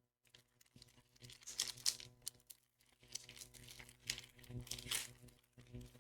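Foil wrapper of a Pokémon card booster pack being torn open and crinkled, in two bouts of rustling, the second around four seconds in.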